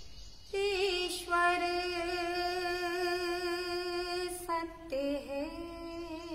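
A woman singing a bhajan with no accompaniment heard: one long held note, then after a brief break a second note that slides up into place.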